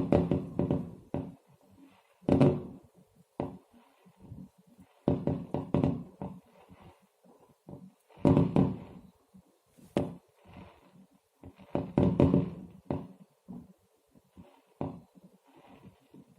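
Fireworks going off: clusters of sharp bangs and crackles every two to three seconds.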